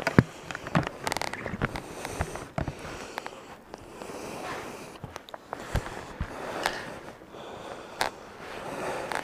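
Irregular clicks, knocks and rustling over a steady rush of wind noise.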